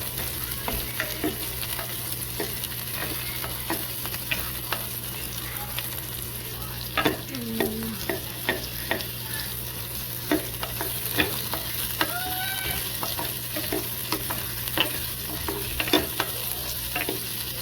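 Lots of garlic sizzling in hot oil in a pan, stirred with a utensil that clicks and scrapes against the pan every second or so.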